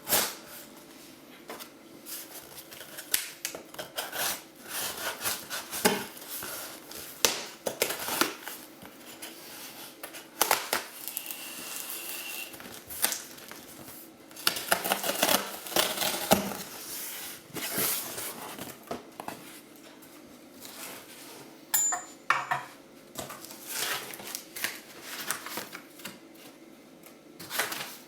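Hands handling and unpacking a box: irregular clicks, knocks and scrapes of packaging being moved and opened.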